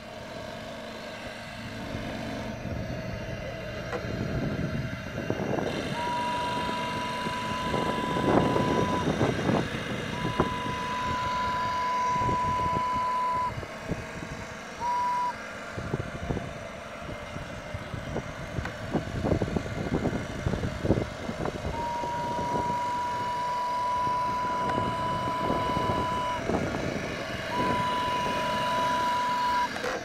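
Medium-size steam whistle on a model steam boat blowing one steady, high note in a series of blasts: two long ones, a short toot, then two more long ones, the last still sounding at the end. A steady rumbling noise runs underneath.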